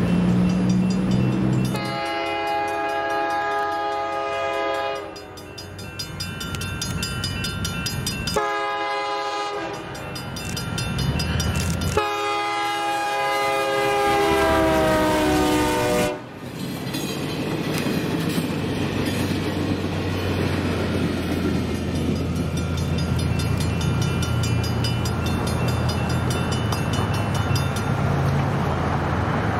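Horn of a Caltrain MP15DC diesel switcher locomotive blowing several blasts for a grade crossing. The last long blast sags slightly in pitch and cuts off sharply about halfway through. After it the locomotive's diesel engine and the passenger cars rumble past over the rails.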